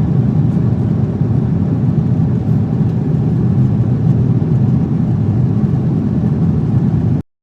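Steady low rumble of an airliner cabin in flight: engine and airflow noise heard from inside the cabin. It cuts off abruptly near the end.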